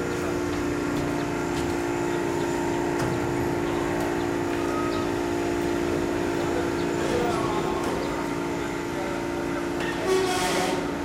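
Electric drive motors of telescopic lighting-tower masts running with a steady hum as the masts extend. A short, louder burst of noise comes about ten seconds in.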